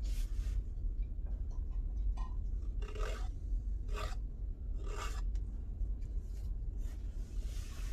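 Metal palette knife scraping wet acrylic paint along the edge of a canvas in several short strokes, some about a second apart.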